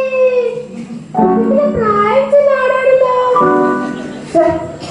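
A song: a high voice singing long held notes that bend up and down, in two phrases with a short break about a second in.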